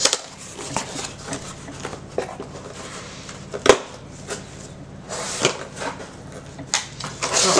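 Corrugated cardboard shipping box being handled and opened by hand: flaps scraping and rustling, with scattered light taps and one sharp knock about three and a half seconds in.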